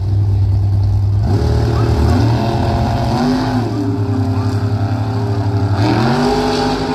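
Two drag-racing cars at the starting line, their engines running with a steady low note, then launching about a second in, with engine pitch climbing as they accelerate down the strip.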